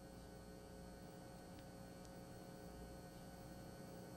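Near silence with a faint, steady electrical mains hum in the broadcast audio.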